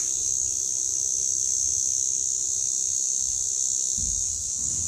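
Steady, high-pitched drone of insects calling without a break, with faint low rumbles of handling or water near the end.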